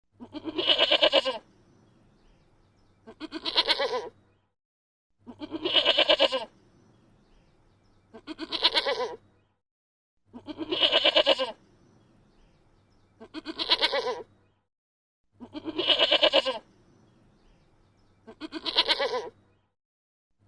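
Goat bleating: eight calls of about a second each, repeated at an even pace roughly every two and a half seconds.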